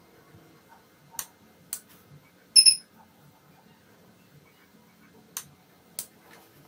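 A small blue relay module clicking on and off several times as fingers bridge the moisture-sensor probe wired to it. About two and a half seconds in comes the loudest sound, a short, high double beep.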